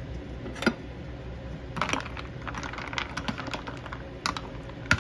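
Ice cubes clinking and a metal utensil clicking against them as blanched nopales are stirred in a bowl of ice water, an ice bath to stop the cactus paddles cooking. One click about half a second in, then a quick, irregular run of small clicks from about two seconds on.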